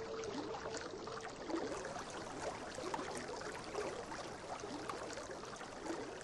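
Small rocky woodland stream rushing and splashing over a cascade, a steady hiss of water with little splashes. A held low Native American flute note fades out about a second in.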